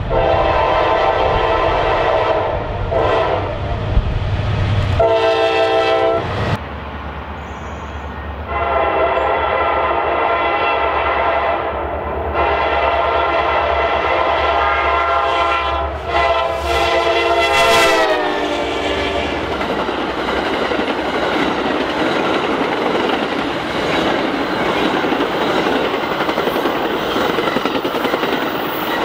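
Diesel locomotive horn sounding several long chord blasts at a crossing, its pitch dropping near the end of the last blast as the train goes by. Then the steady rush and clatter of the train's wheels on the rails as it passes.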